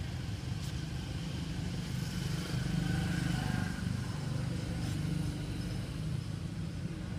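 A low, steady engine rumble, growing a little louder for a second or two in the middle.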